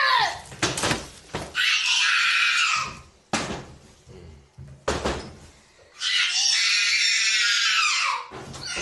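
Long, high-pitched screams three times, with two sharp door bangs in between, about three and five seconds in.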